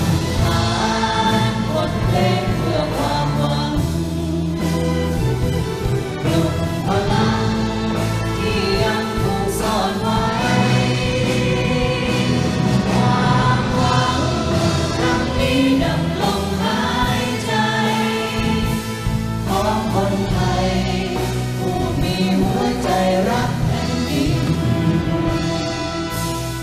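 Solo voices and a choir singing a slow Thai song with orchestral accompaniment, the music easing off slightly near the end.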